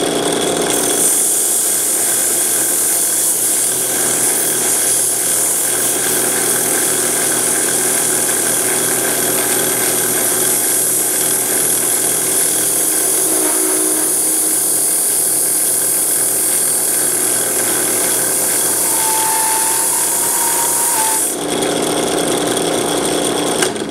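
Drill press spinning a wire brush against copper pipe: a loud, steady scrubbing hiss over the motor's hum. The scrubbing stops about 21 seconds in while the motor keeps running, then the sound cuts off near the end.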